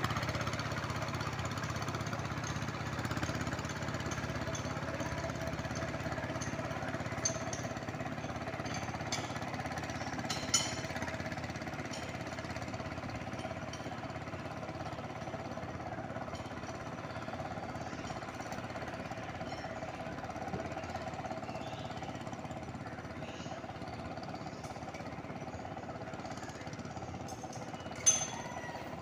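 Tractor engine running steadily with a rapid chugging pulse while plowing a rice paddy, slowly growing fainter. A couple of short sharp clacks stand out, one about ten seconds in and a louder one near the end.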